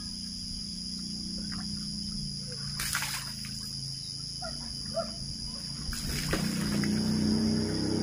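Steady high chirring of insects, with water splashing from a scoop poured onto a concrete floor twice, about three and six seconds in. A low hum swells near the end.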